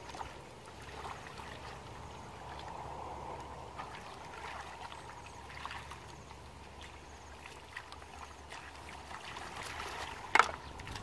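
Hands working through shallow muddy water: faint sloshing and trickling with small scattered clicks, and one sharp knock near the end.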